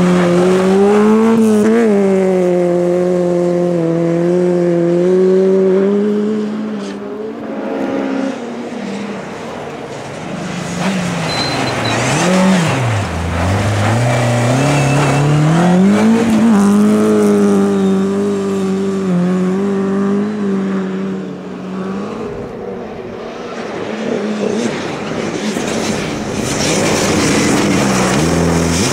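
Rally cars driven hard on a snowy stage, one after another: engines revving high, their pitch climbing and falling again and again as the drivers shift gears and lift off. The note drops low and picks up again around the middle and near the end.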